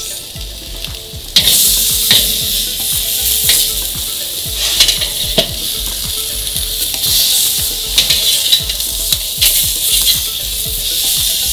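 Steaks sizzling loudly as they sear on hot grill grates over a charcoal fire while being flipped with a spatula. The sizzle jumps louder suddenly about a second and a half in, with scattered sharp pops and crackles through it.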